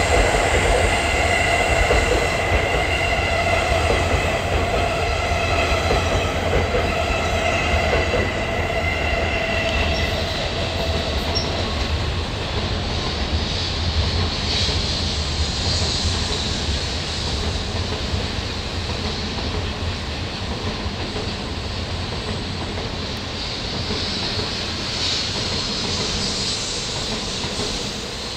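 E657-series electric limited express train running past, with steady high-pitched tones from its wheels and motors that fade out about ten seconds in. Then a 16-car N700-series Shinkansen runs past on the next line: a steady rushing rumble whose hiss swells twice, about halfway and near the end.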